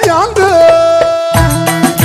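Turkish folk dance music played live: an ornamented lead melody that turns and then settles on one long held note, over a driving bass-and-drum beat that stops for a moment and comes back in about a second and a half in.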